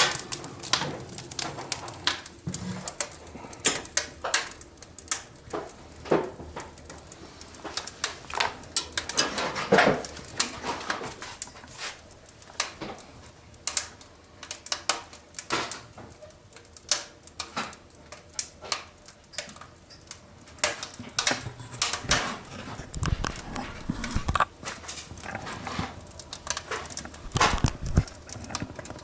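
Wood fire crackling inside a cast-iron stove, with irregular sharp pops and snaps. A couple of dull low thumps come in the last few seconds.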